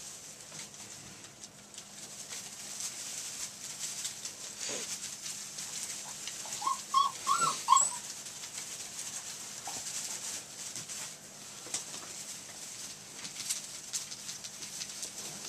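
Young retriever puppies scuffling in wood-shaving bedding, a faint rustle and crackle, with one puppy giving a quick run of about five high whimpering yelps about halfway through.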